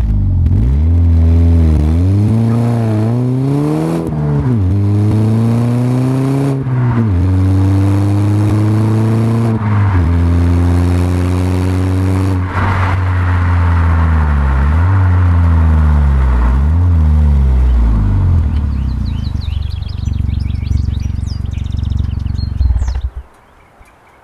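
Exhaust of an Audi A4 2.0 TFSI turbocharged four-cylinder, pulling away and accelerating through four upshifts, each a rising pitch cut by a short drop at the gear change. It then eases off and runs at lower, wavering revs, and the engine sound stops abruptly near the end, leaving birds chirping.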